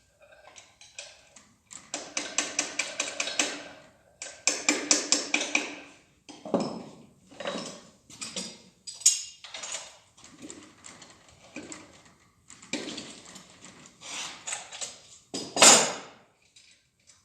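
Metal hand tools and engine parts clinking and rattling on the bench during an engine teardown. There are several runs of quick, even clicks, the first two about two seconds in and about four and a half seconds in, with scattered knocks between them and a loud metal clank near the end.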